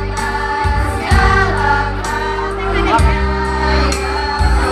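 School choir singing a madrasah anthem with instrumental backing, its voices carried over steady low accompaniment notes.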